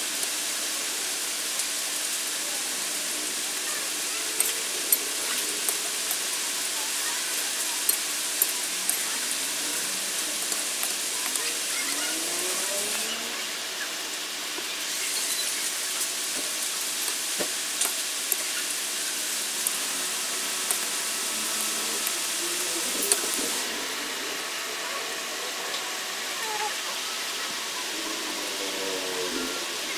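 Coconut milk with dried moringa and dried anchovies simmering in an aluminium pan while it is stirred with a metal ladle. It makes a steady sizzling hiss with scattered sharp ticks and pops.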